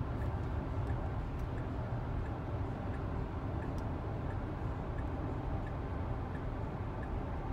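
Steady low road rumble heard from inside the cabin of a Tesla Model X P100D on the move, with faint light ticks every half second or so.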